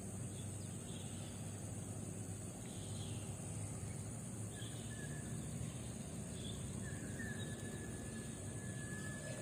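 Swamp ambience: a steady high insect drone over a low wind rumble, with a few faint bird chirps and one thin held whistle near the end.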